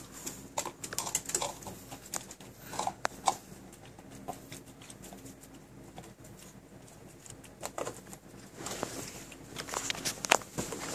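A dog licking out a plastic yogurt cup and pushing it around a wooden floor with its nose and paw: irregular light knocks, clicks and scrapes of the cup against the boards, busiest near the end.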